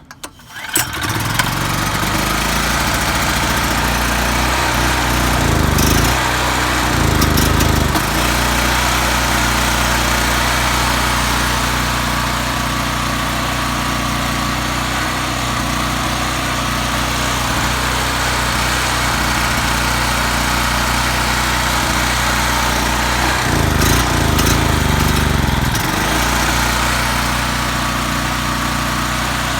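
Predator 3200 generator's small single-cylinder engine starts and settles into a steady run on choke, still warming up after sitting two or three years. Its speed wavers briefly about six seconds in and again about 24 seconds in.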